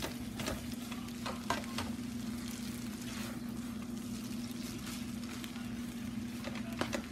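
Rice noodles and vegetables sizzling in a large nonstick frying pan as they are tossed and stirred with a utensil, which knocks against the pan a few times. A steady low hum runs underneath.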